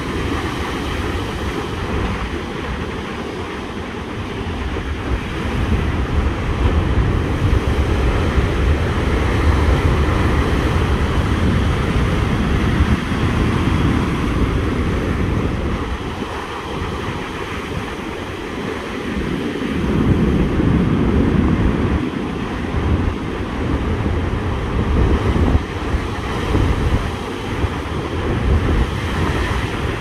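Heavy surf of a rough sea whipped up ahead of a typhoon, waves breaking and washing in one after another, the noise swelling and easing as the sets come in. Wind buffets the microphone.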